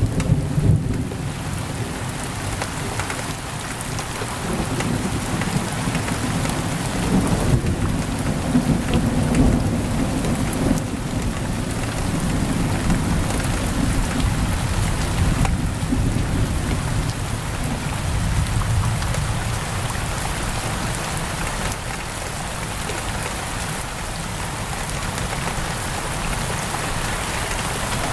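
Heavy rain pouring steadily against a window, with low rolling thunder rumbling underneath through the first half.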